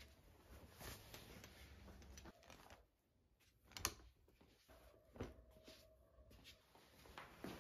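Faint handling of clothes on hangers, with soft rustling and a sharp click about four seconds in, then softer knocks.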